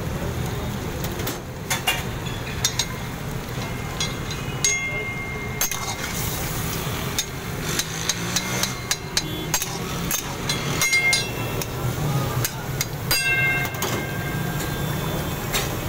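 Metal spatula knocking and scraping against an iron karahi while stirring a simmering mutton curry: repeated sharp metallic clanks, some ringing briefly, over a steady low hum.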